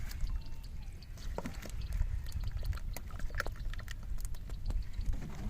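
Water splashing and pouring with scattered small clicks and knocks, over a steady low rumble.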